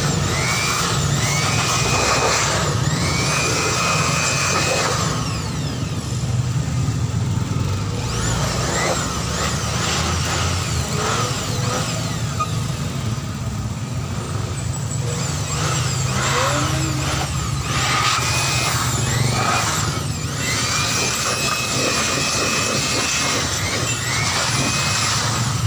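Handheld electric aspirator blower running steadily, its small motor whining while it blows air into an open desktop computer case. The whine rises and falls in pitch a few times.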